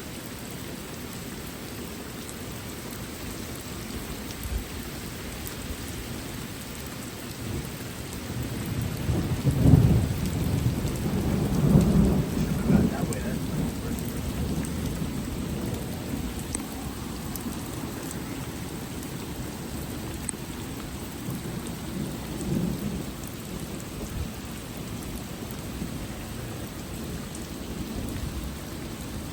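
Heavy rain falling steadily during a thunderstorm, with a long rolling thunder rumble that swells about a third of the way in and fades over several seconds, and a smaller rumble of thunder later.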